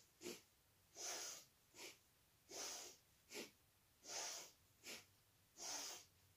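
A woman breathing hard and rhythmically during a quick seated shoulder exercise. In each cycle of about a second and a half there is one longer breath and one short, sharp one.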